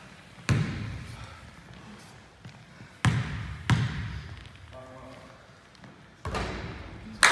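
A basketball bounced on a hardwood gym floor before a free throw, about five separate bounces, each a deep thud that echoes around the gym.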